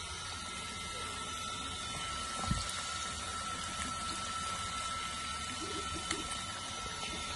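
Meat pieces deep-frying in a wok of hot oil on a gas burner: a steady sizzle, with a thin steady tone above it and a short low bump about two and a half seconds in.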